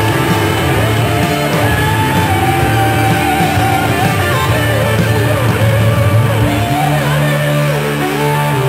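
Rock music with guitar, at a steady loud level.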